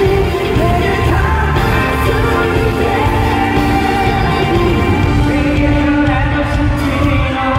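K-pop song with male voices singing over a loud backing track, played through a concert sound system.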